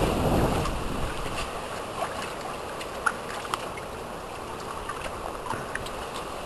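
Water sloshing and splashing in a paddling pool as a Samoyed noses about in it, louder at the start. Small splashes and drips follow.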